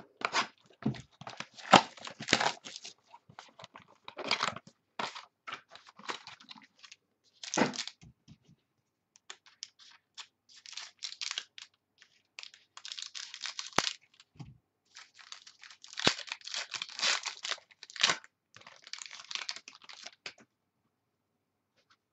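Trading-card packaging being torn open and crinkled by hand, with the cards handled, in irregular spells of tearing and rustling broken by short pauses.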